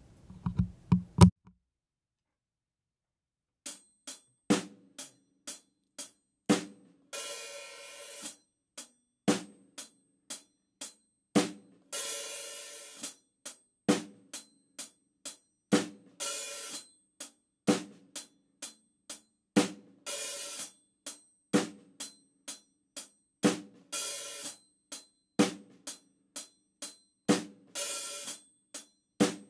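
Drum kit played slowly: closed hi-hat eighth notes, about two strokes a second, with snare strokes on the backbeats. Once a bar the hi-hat is opened with the foot on the "and" of four for about a second of sizzle, then clamped shut on beat one: the hi-hat "bark". The playing starts a few seconds in.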